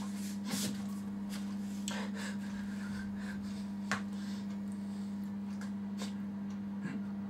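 Room tone: a steady low electrical hum, with a few faint clicks and rustles as a person moves about the room.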